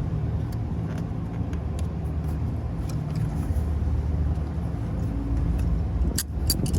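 Steady low machinery rumble and hum. A few sharp clicks come about six seconds in, from handling the smoke detector's parts.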